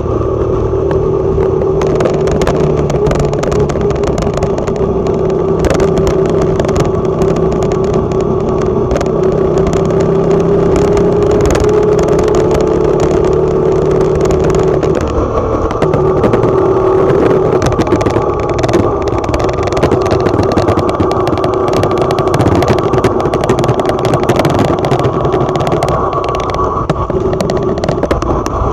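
Small motorcycle engine running steadily while riding along a road, its pitch rising a little and falling back about halfway through, with frequent short clatters and knocks on top.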